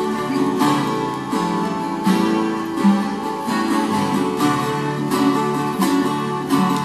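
Acoustic guitar-family string instruments strummed and plucked, playing picked melody notes over chords.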